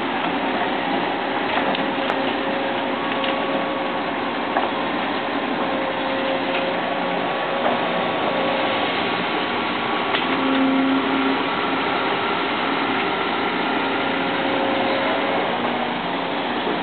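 Sumitomo excavator's diesel engine and hydraulics running steadily as it works, with a few sharp clicks or knocks.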